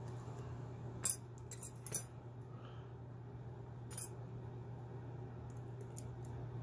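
Small metallic clicks and scrapes of a lock pick and tension wrench working in a brass padlock's keyway: a sharp click about a second in, a cluster near two seconds, another around four seconds and faint ticks near six seconds, over a steady low hum. The picker thinks the pick is binding on the bottom of the core and getting stuck.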